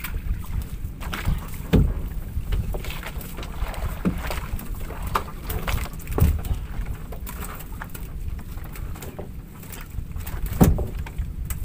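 Knocks and thumps of a fishing net being hauled by hand into a wooden outrigger boat, over a steady low rumble. The most distinct knocks come about two seconds in, about six seconds in, and loudest near the end.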